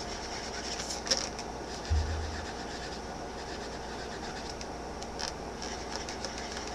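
Marker drawing eyes on an inflated latex balloon: faint scratching strokes over a steady hiss, with a brief low thump about two seconds in.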